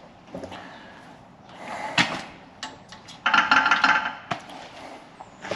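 A sharp knock about two seconds in, then about a second of quick rattling clatter of hard objects, with one more click after it.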